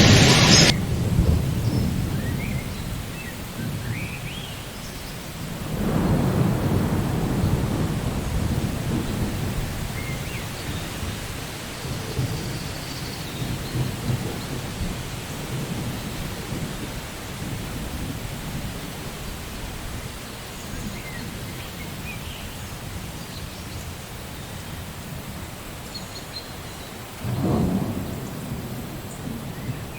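Rain falling steadily with thunder rumbling low, one long roll swelling about six seconds in and another near the end. A loud hiss cuts off suddenly within the first second.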